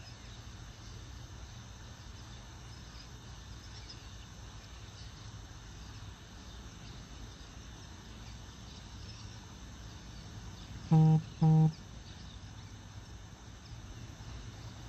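Steady outdoor ambience with a low hum and faint insect chirping, broken about eleven seconds in by two short, loud, flat-toned honks in quick succession.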